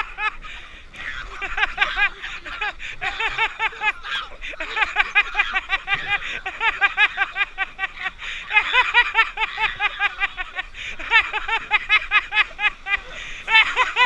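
High-pitched, rapid laughing in long runs with short breaths between, several bursts a second, from people on a river raft.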